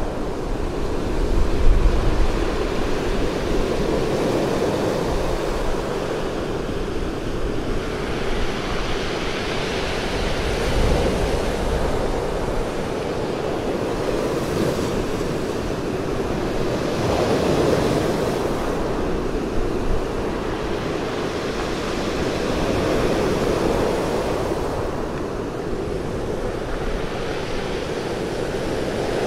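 Sea surf breaking onto a pebble beach: waves crashing and washing up the shingle in a continuous rush that swells and eases about every six seconds.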